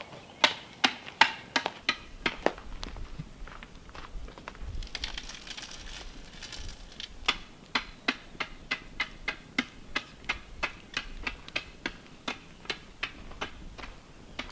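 Steel digging bar jabbed into hard, rocky ground, giving sharp strikes. They come irregularly at first, then settle into an even rhythm of about two and a half a second; a few seconds of scraping in the dirt sit between the two runs.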